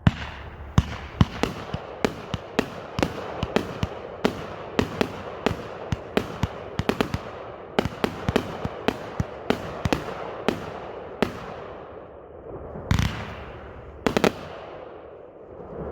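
Raccoon Fireworks Neon Boom 25-shot fireworks cake firing its shots straight up: a rapid run of sharp shots, about two or three a second, over a steady hiss. Two louder bangs come near the end.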